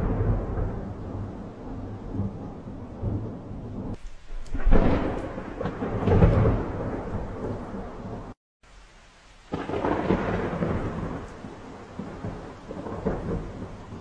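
Thunder rumbling through steady rain, in several rolling swells. The sound drops out for about a second past the middle.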